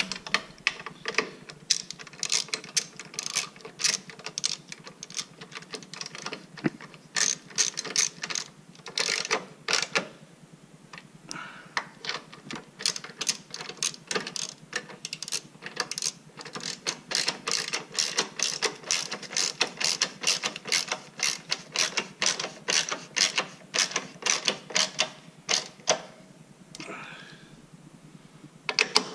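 Hand ratchet clicking in quick runs of sharp clicks as it drives the screws holding the motorcycle's ECU and backrest bracket, with a short pause in the middle.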